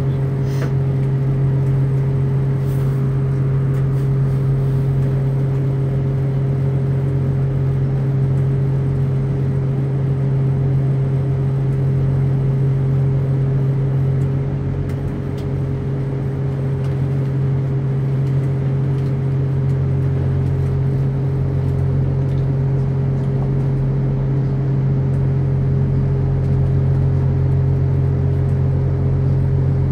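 Class 175 diesel multiple unit heard from inside the passenger carriage: a steady low drone from its diesel engine, with a slight dip about halfway through.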